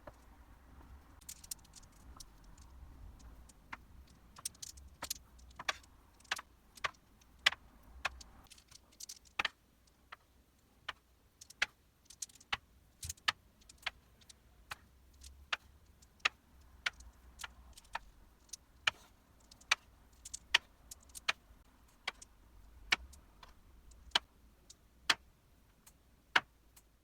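Glass marbles running down a handmade wooden marble run, clicking sharply against the track pieces at irregular intervals, about one or two clicks a second, over a faint low rolling rumble.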